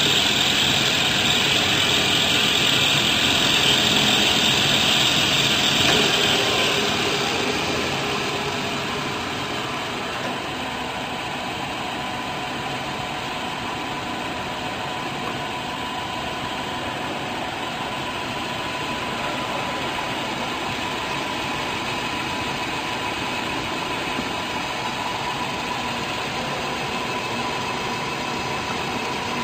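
Hardinge HLV toolroom lathe's spindle and drive running at high speed, around 3,000 RPM, with a loud high-pitched whine. About seven seconds in, the whine fades and the sound drops to a quieter, steady running noise.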